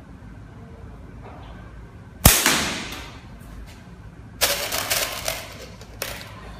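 A flat-band slingshot fires a marble: one sharp crack about two seconds in, fading over most of a second. A couple of seconds later comes a short burst of rattling clicks, then one more click.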